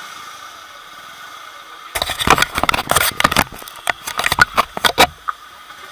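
A rapid, irregular run of loud clicks and knocks starts about two seconds in and lasts some three seconds, over a low steady background hum.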